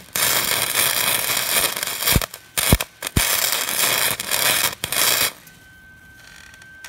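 Wire-feed welder arc crackling and sizzling as weld metal is built up on a broken-off exhaust manifold stud to form a nub. Two or three brief breaks with sharp cracks around the middle, and the arc stops about five seconds in.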